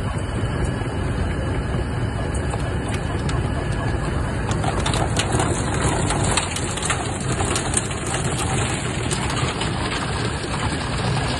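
Nogam almond hulling line running: a steady machinery drone under the constant rattle and clatter of almonds in their hulls tumbling through the hopper and onto the conveyor. The clatter grows busier in the middle.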